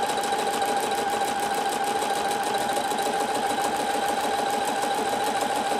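Husqvarna Viking Platinum Plus sewing machine running steadily at speed, sewing its automatic mending stitch back and forth: rapid, even needle strokes over a steady motor hum.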